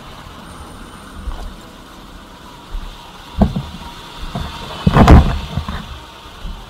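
A low, steady rumble of road traffic. Over it come a few short knocks, then a loud cluster of knocks and rustling about five seconds in.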